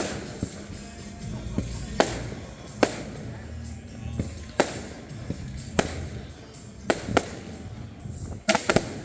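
Aerial fireworks shells bursting: a string of sharp bangs roughly a second or so apart, with a quick cluster of three near the end, over music playing underneath.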